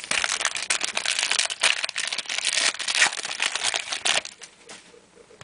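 Wrapper of a trading-card pack crinkling and crackling as it is opened and crumpled by hand, dense for about four seconds, then dying away.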